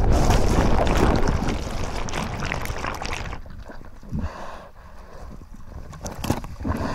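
Whitewater of a breaking wave churning around a surfer and surfboard: a loud rushing for about three seconds that drops away to quieter sloshing water with a couple of splashes as the board comes back up to the surface.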